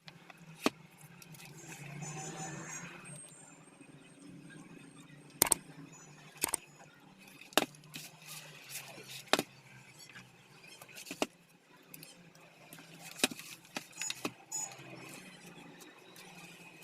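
Irregular sharp clicks and knocks, about a dozen, over a low steady hum, like tools and metal parts being handled.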